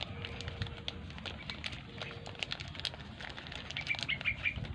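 Scattered light clicks and taps of small metal engine parts being handled while a motorcycle's valves are oiled and refitted, with a faint steady tone in the first half.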